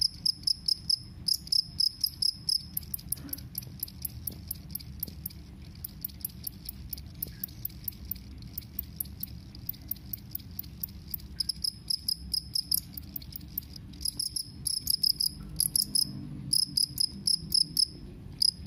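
Jangkrik kalung field cricket (the collared cricket) stridulating a loud, shrill pulsed chirping song. It sings rapid trains of clicks, strong at the start, softer through the middle, and loud again near the end.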